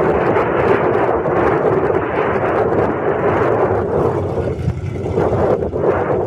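The 1952 Ford grain truck's eight-cylinder gas engine running at a steady idle, heard as a continuous loud rumble with wind buffeting the microphone.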